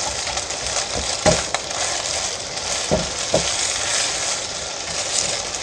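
Eggs sizzling in oil in a nonstick pan while a silicone spatula stirs and breaks them up, with a few short scrapes and taps of the spatula against the pan.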